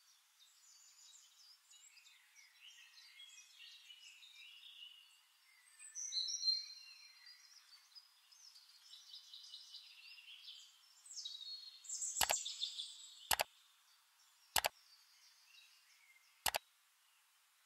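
Faint, high chirping of birds, with four sharp clicks in the second half.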